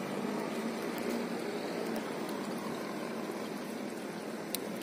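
Steady background of water around a small boat at sea, with a faint low hum and one short click about four and a half seconds in.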